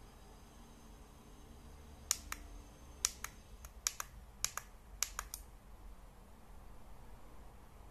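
Push buttons on a digital night vision monocular clicking as they are pressed: about a dozen sharp clicks, many in close pairs, from about two seconds in to about five and a half seconds in.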